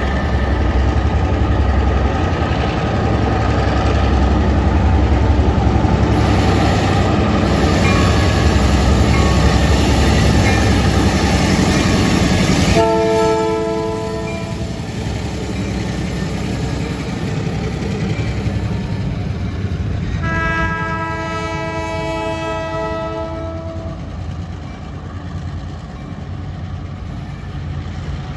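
Diesel freight train passing close, the locomotive's engine rumbling loudly as it goes by. Then the train's horn sounds twice as it moves off: a short blast about halfway through and a longer one a few seconds later.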